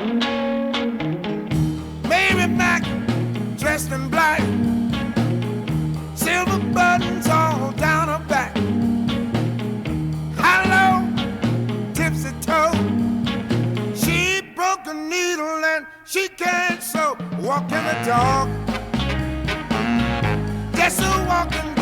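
Rhythm-and-blues song playing: a steady, repeating bass and guitar groove with a melody line over it. The bass drops out for a moment about fifteen seconds in, then comes back.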